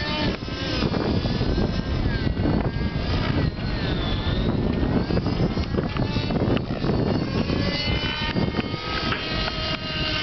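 Align T-Rex 600N RC helicopter's nitro glow engine and rotors running in 3D flight, the whine gliding up and down in pitch as the helicopter manoeuvres.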